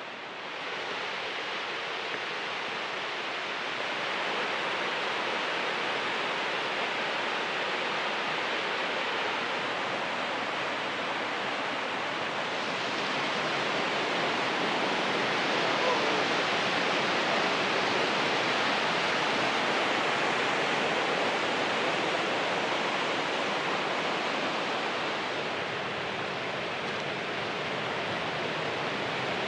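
North Fork of the Wallace River rushing steadily, a constant hiss of flowing water that grows a little louder in the middle and eases off near the end.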